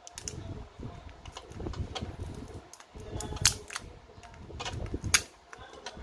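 Plastic pry tool clicking and scraping against a smartphone's glued-in battery and plastic frame while prying the battery out against its adhesive. A handful of sharp clicks with rubbing in between, the two loudest about three and a half and five seconds in.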